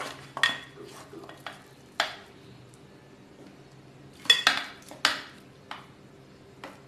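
A utensil clinking against the metal pressure cooker as beef pieces are set on top of the cooked rice: about seven separate sharp clinks with a faint metallic ring, the loudest a little past the middle.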